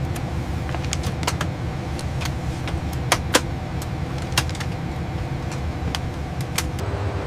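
A steady low mechanical rumble with irregular sharp clicks and ticks scattered through it, the loudest a little after three seconds in.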